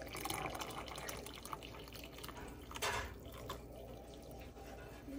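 Warm milk being poured from a saucepan into a stoneware mug of chaga tea: a steady, faint pouring trickle, with a brief louder burst about three seconds in.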